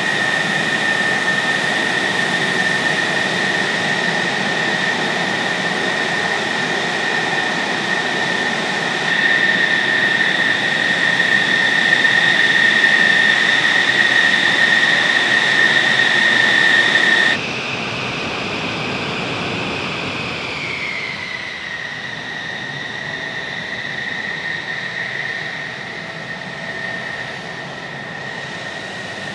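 F-16 Fighting Falcon's jet engine running with a loud, steady high whine. A little past halfway the sound cuts abruptly to a quieter, more distant whine that drops slightly in pitch a few seconds later.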